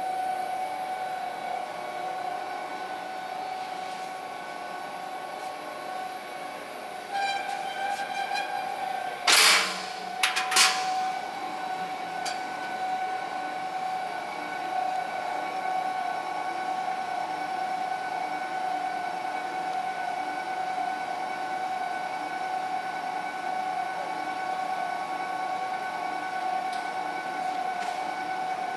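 Ribbon blender's 7.5 hp SEW-Eurodrive gearmotor running, a steady whine with overtones. Three sharp knocks come about ten seconds in.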